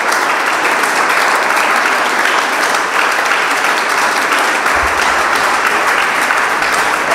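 Audience applauding, a dense, even clapping at a steady level.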